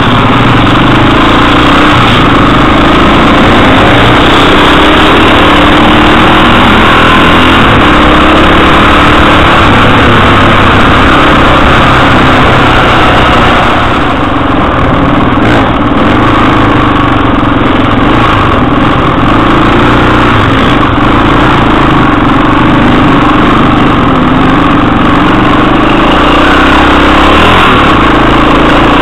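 Four-stroke single-cylinder enduro motorcycle engine running while riding, heard loud and close from a camera mounted on the bike.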